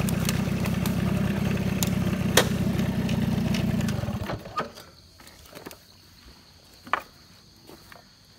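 Small engine running steadily, then switched off about four seconds in; after that only a few light clicks and knocks.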